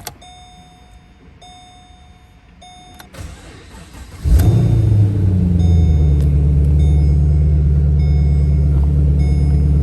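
Warning chimes beep at an even pace in a quiet cabin. Then the Holden Commodore SS's V8 with its aftermarket X-Force exhaust cranks briefly and starts nice and easy, flares up once and settles into a steady, deep idle with the chimes still going.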